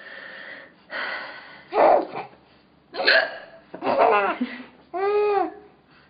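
A woman's hiccups: several sudden, loud hiccups in a row with breathy laughter between them. The last ones are voiced, with a squeaky rise and fall in pitch.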